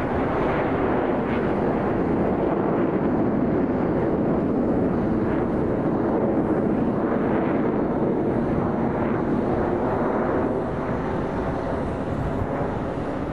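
Jet noise from a nine-ship formation of Surya Kiran BAE Hawk Mk132 trainer jets passing overhead: a steady rushing roar that eases slightly about ten seconds in.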